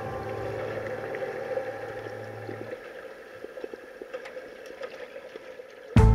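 Background music with held notes fading out, leaving a faint hiss with scattered small clicks, before a new guitar track starts abruptly at the very end.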